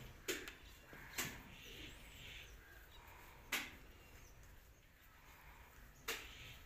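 Quiet outdoor background with faint bird chirps and four short, sharp knocks spread through it.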